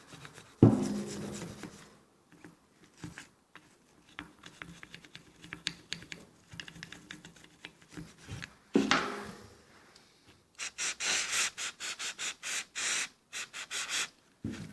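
A brush scrubbing carbon off a Toyota Yaris throttle body: faint scratchy scrubbing, a sharp knock about half a second in and another about nine seconds in, then a run of quick, even scrubbing strokes, about four a second, near the end.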